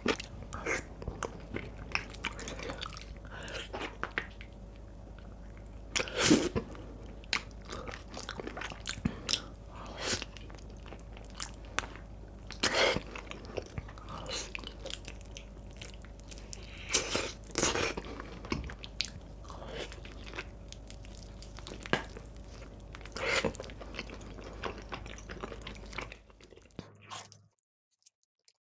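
Close-miked eating of spicy braised beef feet: repeated biting and chewing with crunchy, crackling bites, a few of them louder, over a steady low hum. The sound cuts off about two seconds before the end.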